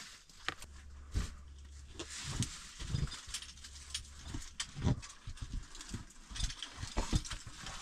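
Irregular crunching and clattering of footsteps on loose, crumbling stone, with small rocks shifting and knocking underfoot.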